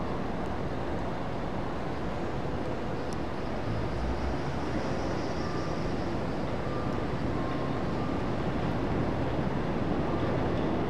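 Subway train running, a steady rushing rumble that grows slightly louder near the end.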